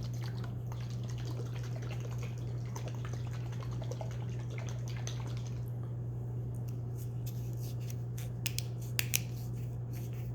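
Small clicks and taps of objects being handled on a table, sharper and more frequent over the last few seconds, over a steady low electrical hum.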